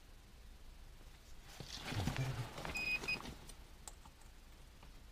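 Handheld metal-detector pinpointer scraped along a rough stone wall, with handling noise for a second or two, and two short high beeps from the pinpointer near the end of the scraping.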